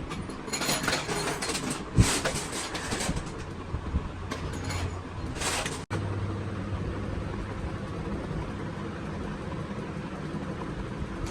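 Workshop clatter of metal tools and engine parts, with scraping bursts and a sharp knock about two seconds in. After an abrupt cut about halfway through, a steady low hum.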